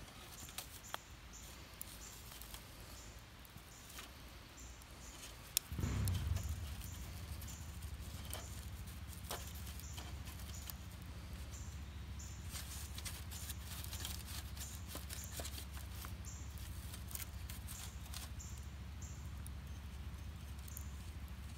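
Wood fire crackling with small snaps and clicks in a hobo stove as split sticks are pushed into its feed hole. About six seconds in there is a sharp knock, and then a steady low rumble sets in and keeps going.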